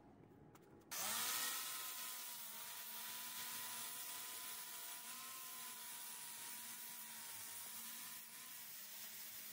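Angle grinder switched on about a second in: its motor whine rises quickly and then holds steady at running speed.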